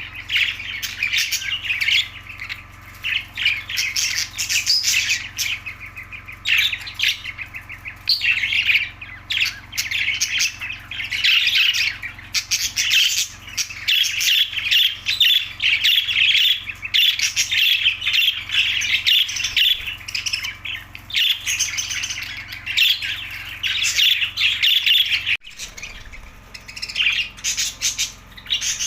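Budgerigars chattering: a dense, continuous run of quick squawks and warbled chirps, with a short lull near the end.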